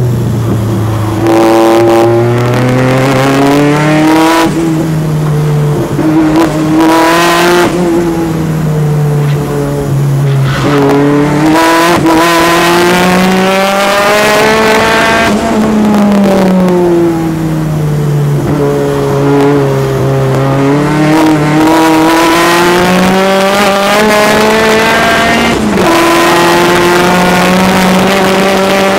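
Turbocharged Peugeot 205 engine heard from inside the car at speed on a race circuit, the revs climbing hard and then dropping again and again as the car accelerates, changes gear and slows for corners.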